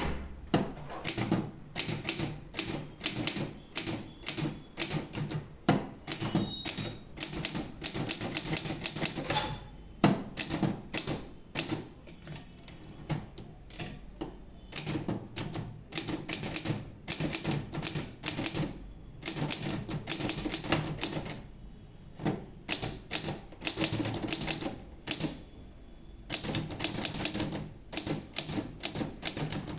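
Diamond 800TR typewriter being typed on: quick runs of key strikes in bursts, broken by short pauses.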